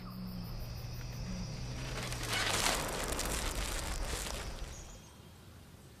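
Outdoor nature ambience with insects chirping, and a rustling, crackling noise that starts about two seconds in and fades out near the end.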